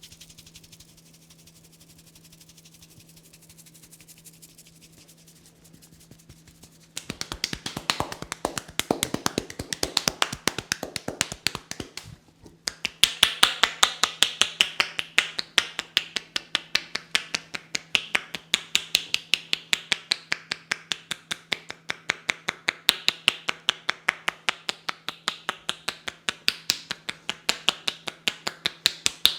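Rapid, rhythmic percussive head-massage strokes: hands tapping and slapping on the head at about four strikes a second. They start about seven seconds in and break off briefly halfway through.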